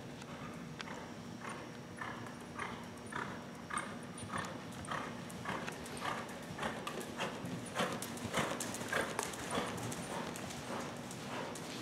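Hoofbeats of a ridden horse moving at a steady gait over the sandy footing of an indoor arena, an even rhythm of about two beats a second. The beats grow louder about two-thirds of the way through as the horse passes close.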